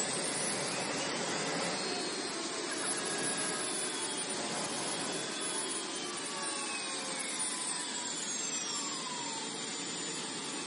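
MTT jet-turbine motorcycle running hard in a burnout: a steady turbine roar with whining tones that glide up and down, several falling away in the second half, while the rear tyre spins on the tarmac.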